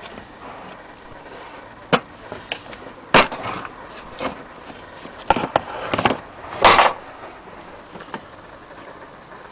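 Handling noises: a few sharp knocks and clatters, the loudest about three seconds in and again near the middle, with scraping and rubbing between them.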